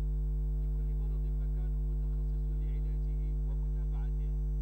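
Steady electrical mains hum, a low buzz with a stack of steady overtones above it, unchanging throughout.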